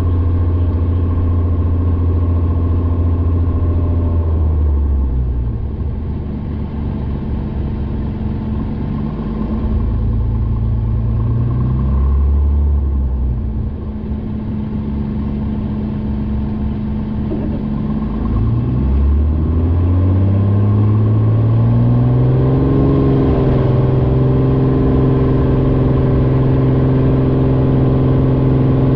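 Light single-engine propeller airplane's engine heard from inside the cockpit. It runs at low power while taxiing, then about two-thirds of the way through it is throttled up and rises in pitch to a steady, louder run for the takeoff roll.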